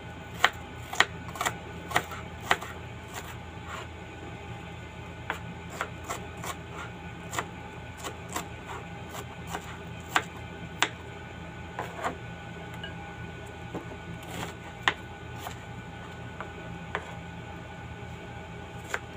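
Kitchen knife chopping an onion on a plastic cutting board: sharp, irregular taps, about two a second at first, then more scattered, over a steady low hum.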